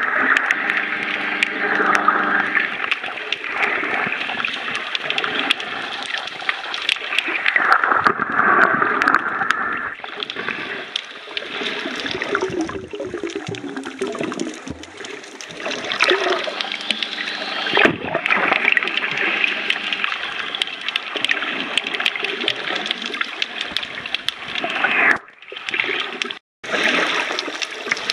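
Water sloshing and gurgling against a camera held underwater while snorkelling, with two brief sudden dropouts near the end.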